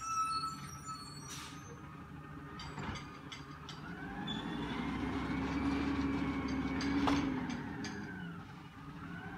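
Peterbilt 320 garbage truck with an Amrep automated side-loader body, its diesel engine revving up over several seconds and easing back down while it works its hydraulics at the cans. A few light clanks come in the middle of it.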